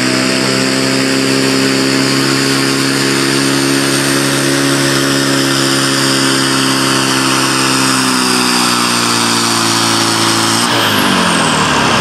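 Case pulling tractor's engine held at high, steady revs under full load as it drags a weight-transfer sled. The revs sag slightly a few seconds before the end, then fall away in the last second or so as the pull ends.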